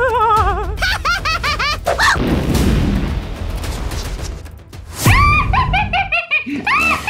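Cartoon soundtrack: music with quick, squeaky, giggle-like vocal sounds at the start. A sudden loud boom comes about five seconds in, followed by more short warbling sounds.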